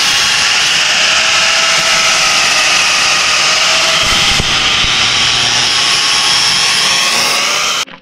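Angle grinder with a thin cutting disc cutting through steel plate: a loud, steady high whine and grinding hiss whose pitch wavers slightly under load. It stops suddenly near the end.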